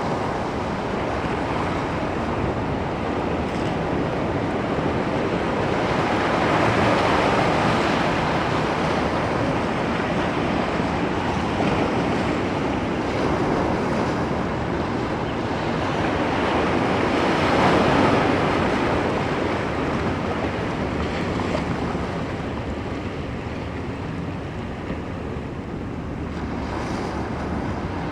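Ocean waves breaking and washing up on the shore in a continuous rush, swelling louder as larger waves break about 7 and 18 seconds in.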